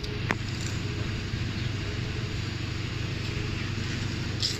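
Car engine idling steadily, with one short click just after the start.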